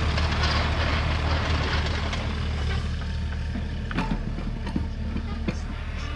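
Terex mini excavator's diesel engine running steadily as the machine works a bucket of dirt, with a rushing noise in the first half that fades about three seconds in. A few short sharp knocks come in the second half.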